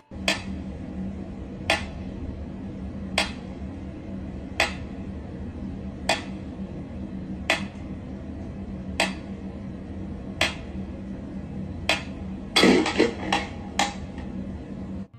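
Sharp taps or knocks on a hard object, one about every second and a half, then several in quick succession near the end, over a steady low hum.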